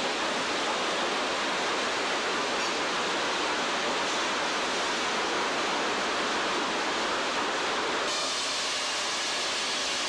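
Steady, loud noise of sawmill machinery running: conveyors and chain decks with no distinct knocks or tones. The noise changes abruptly about eight seconds in.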